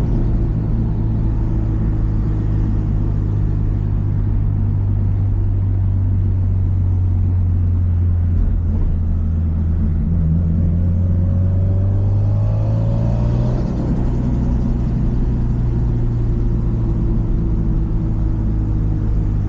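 Subaru Impreza WRX STI's EJ207 turbocharged flat-four engine running as the car is driven, a low steady rumble. The engine note eases down over the first several seconds, climbs for a few seconds past the middle, drops suddenly about two-thirds of the way in, then holds steady.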